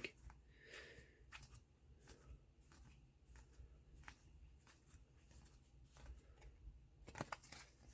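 Near silence with faint, scattered clicks and rustles of trading cards being handled and flipped through by hand, a few louder ones near the end.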